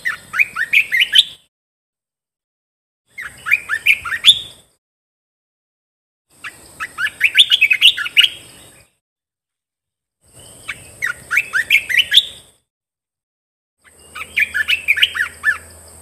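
Olive-winged bulbul singing: five short phrases of quick, sliding warbled notes, each a second or two long, with pauses of about two seconds between them.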